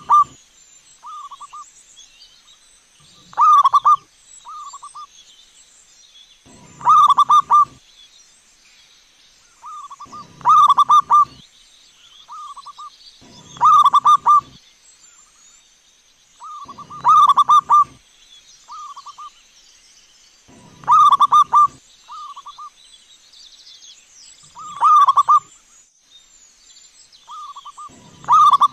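Zebra dove (perkutut) cooing: a loud rolling, purring coo phrase about every three and a half seconds, each followed by a softer, shorter coo.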